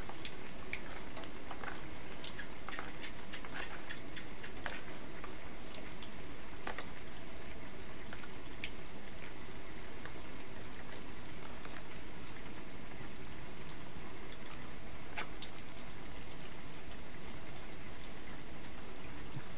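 Food cooking in two woks on a gas stove: a steady bubbling hiss from the simmering spinach and vegetable clear soup, with many small scattered pops and crackles that could come from the soup or the hot oil.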